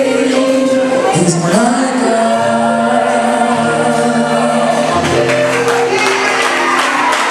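Gospel singing with held, sliding vocal notes over sustained low instrumental notes.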